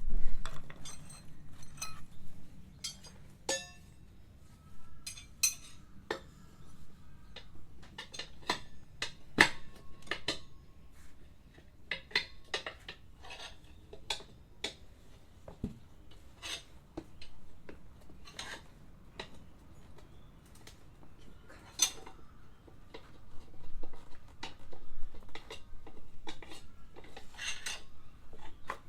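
Metal hand tools clinking and knocking in irregular sharp clicks, some in short clusters, while working on a scooter's front wheel and tyre.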